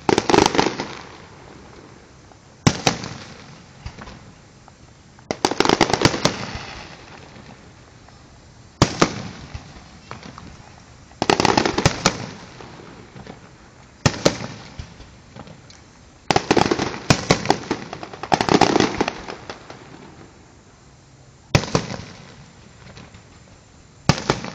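Aerial fireworks display: shells bursting with sharp bangs every two to three seconds, some in quick clusters of several, each followed by a crackling tail that dies away.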